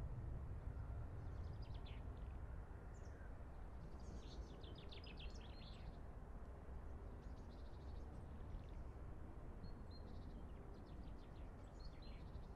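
Small songbirds singing in short phrases of quick, high notes, several times over a faint, steady low rumble.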